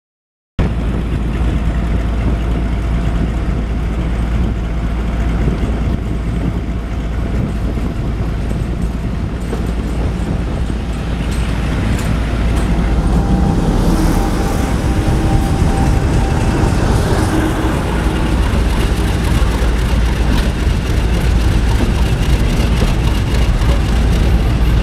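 Heritage main-line diesel locomotives running close by: a loud, steady low rumble that starts abruptly about half a second in.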